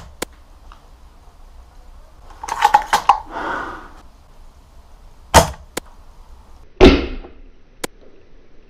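A series of sharp cracks and snaps from an airsoft sniper rifle firing at a player, with the short hiss of the shot and the BB striking. The loudest cracks come about two and a half, five and a half and seven seconds in.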